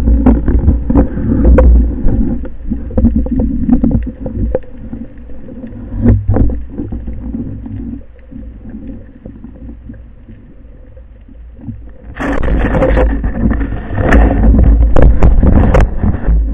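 Underwater noise at a speargun-mounted camera: water rushing and gurgling, with many small knocks and scrapes from handling the gun. It drops quieter for a few seconds in the middle and turns loud again about twelve seconds in.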